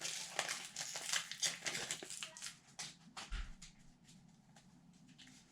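Crinkling and rustling of a hockey card pack's wrapper being torn open and the cards handled, busy with quick crackles for about three seconds and then fainter, with a soft bump near the middle.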